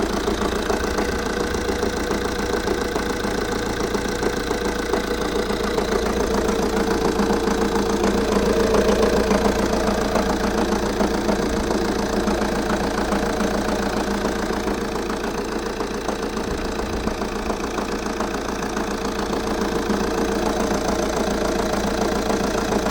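Opel Insignia 2.0 diesel engine running steadily, most likely at idle, with a rapid knocking in its sound. The owner does not know the cause of the knock.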